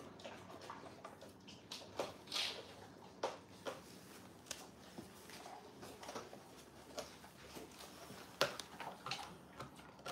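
Dogs gnawing and chewing, a golden retriever among them: faint, irregular crunches and clicks of teeth on a chew, with a few louder crunches.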